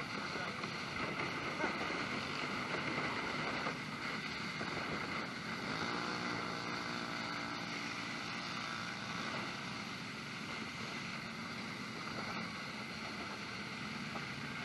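An engine running amid wind noise on the microphone. About six seconds in its pitch rises and holds for a few seconds, then sinks back into the noise.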